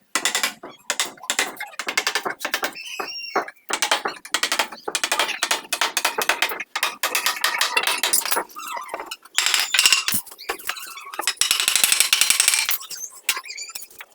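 Woodworking by hand: rapid knocks, taps and scraping of tools on wood, with a brief squeak about three seconds in and a stretch of harsher scraping near the end.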